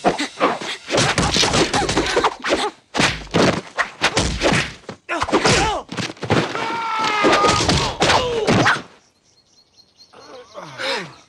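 Cartoon fight sound effects: a rapid run of punches, kicks and thuds mixed with grunts and yells from the fighters. The fighting stops about nine seconds in.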